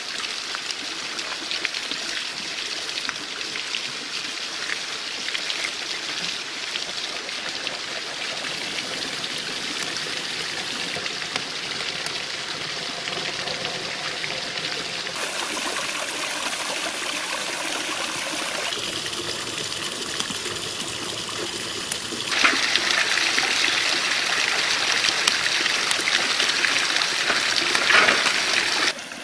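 Wood fire of twigs and split branches burning in a pit oven, crackling with many small ticks over a steady rushing hiss. It is louder for the last six seconds or so, then cuts off abruptly.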